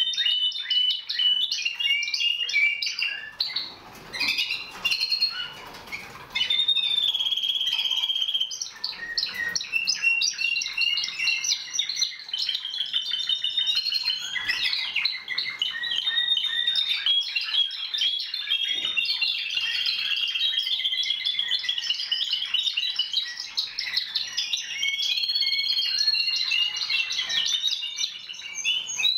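Timbrado Español song canaries singing, several at once in overlapping, continuous warbling phrases, with a short lull a few seconds in.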